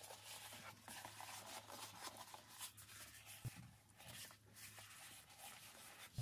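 Near silence with faint rustling and rubbing as cork fabric is handled and pressed into shape.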